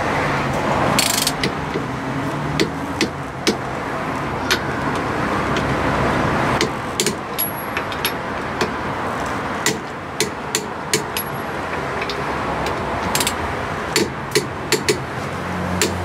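Torque wrench clicking as the nuts holding a hub-centric wheel spacer to a car's rear hub are tightened: sharp, irregular metallic clicks, some in quick runs, over a steady background hum.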